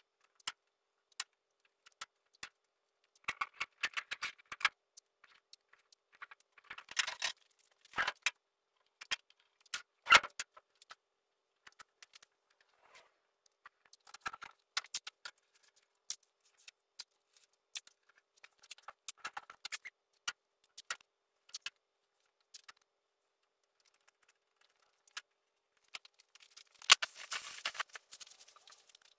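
Scattered sharp clicks and short bursts of crinkling rustle, with a longer, denser rustle near the end: masking tape being pulled and torn and masking paper handled while the truck is masked off for paint.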